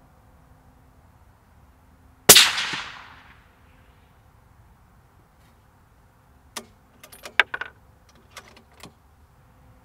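Accuracy International AT .308 bolt-action rifle with a sound moderator fires one shot about two seconds in, the report dying away over about a second. From about six and a half seconds the bolt is worked with a quick run of metallic clicks, ejecting the spent case.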